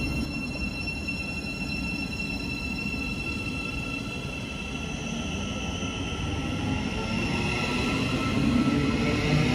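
Thameslink Class 700 electric multiple unit pulling out of the platform, its steady electric whine joined about halfway through by a whine that rises in pitch as it picks up speed, growing louder toward the end.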